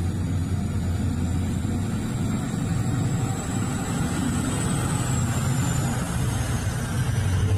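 Komatsu mining haul truck's diesel engine running steadily as the truck drives, a deep drone with a faint high whine above it that dips slightly in pitch about two-thirds of the way through.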